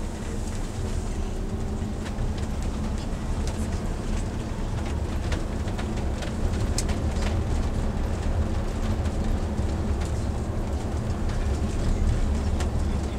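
Steady low rumble of a running vehicle, with faint scattered clicks, getting a little louder about six seconds in.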